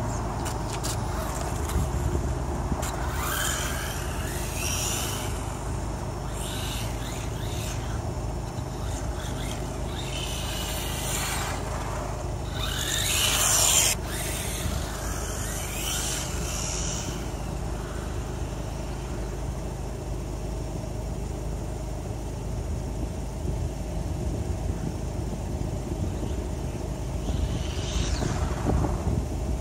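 A WLtoys A959 RC buggy's 2838 brushless motor, on a 2S LiPo, whines up and down in repeated bursts as the car is driven at speed. The whine is loudest and cuts off sharply about midway. A steady low rumble sits underneath.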